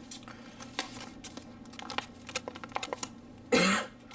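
Plastic blister packaging being handled: a run of small crinkles and clicks, with one louder crackle about three and a half seconds in.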